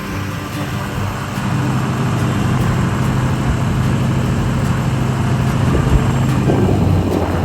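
Road vehicle running steadily: a low engine drone under a haze of road noise.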